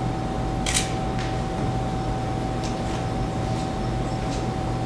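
A steady hum with a thin high tone running through it, broken by one sharp click about a second in and a few fainter clicks after it.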